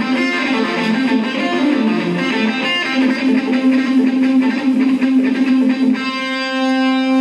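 Live rock band music led by strummed electric guitar. About six seconds in, the rhythmic strumming stops and one steady note rings on, held to the end.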